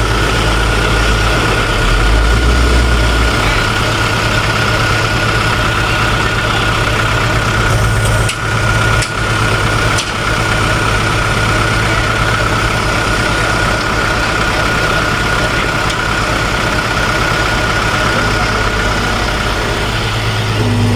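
Heavy diesel earthmoving machinery running steadily, with a constant high whine over the engine.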